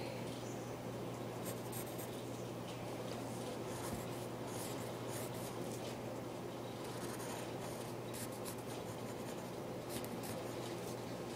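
Pen scratching across paper in several runs of short strokes while drawing, over a steady low hum.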